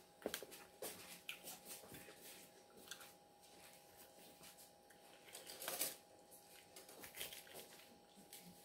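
Faint clicks and rustles of a plastic fork picking through a salad in a glass bowl, with a slightly louder scrape a little before the end.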